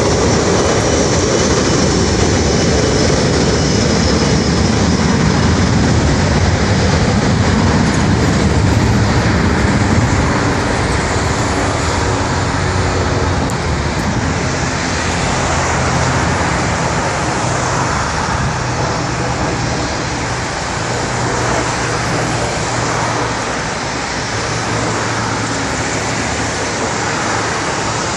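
Jet airliner engines running on the runway, a steady loud noise mixed with road traffic passing close by. It is loudest in the first ten seconds or so, then eases a little.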